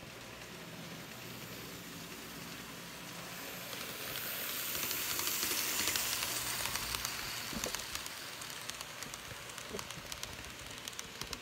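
N scale ALCO PA-1 model passenger train running at high speed: the rush of its wheels and motor swells as it passes close by about five seconds in, then fades. Quick clicks of wheels over rail joints come through near the end.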